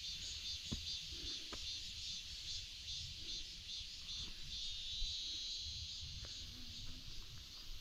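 Summer insects chirring in a steady, high, pulsing chorus, over a low rumble with a few light clicks, typical of a hiker walking on a mountain ridge.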